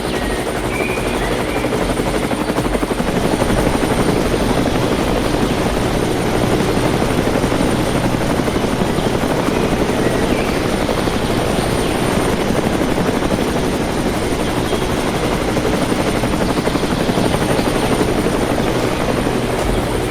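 Small electric motors of miniature RC construction machines running steadily with a continuous whirring hum and a faint high whine.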